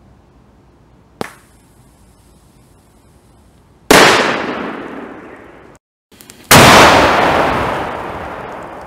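A match cracker, a 0.6-inch firecracker with about 1.8 g of flash powder, goes off with one very loud bang about four seconds in, echoing as it dies away over a couple of seconds; a small sharp pop comes a few seconds before it. After a brief break, a second loud bang follows, with a long echoing tail.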